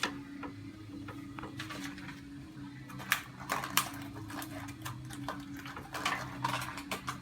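Scattered light clicks and taps of small wiring parts being handled, over a steady low hum.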